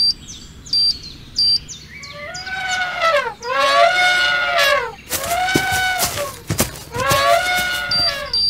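Elephant trumpeting three times, each call swooping down and back up in pitch. Short high beeps, like a bomb timer, sound at the start and again near the end.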